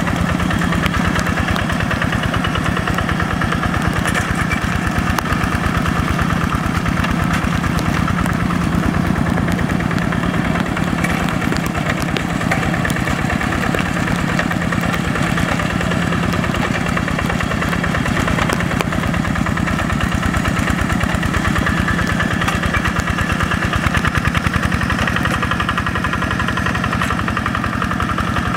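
The single-cylinder diesel engine of a Quick G1000 two-wheel hand tractor runs steadily under load while the tractor, on cage wheels, works a flooded rice paddy. The firing strokes give an even, rapid beat that holds without a break.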